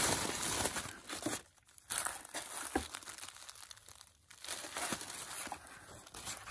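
Tissue paper crinkling and rustling as hands unfold it and pull it back, in irregular bursts, loudest in the first second or so.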